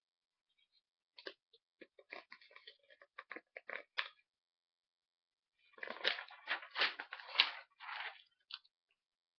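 A sheet of paper rustling and crinkling as it is handled, in two spells of short crackles, the second denser and louder.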